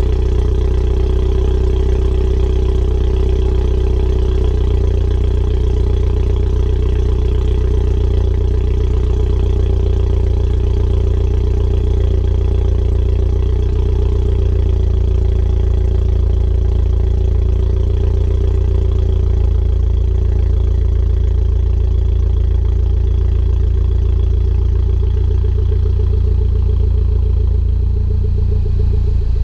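2012 MINI Coupe John Cooper Works' turbocharged 1.6-litre four-cylinder engine idling steadily shortly after a cold start.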